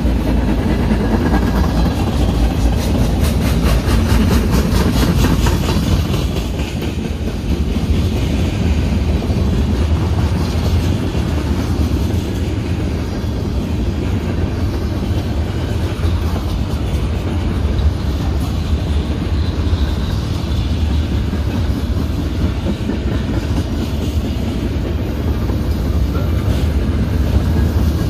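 Freight cars of a slow-moving freight train rolling past with a steady low rumble. The wheels click over the rail joints, most thickly a few seconds in.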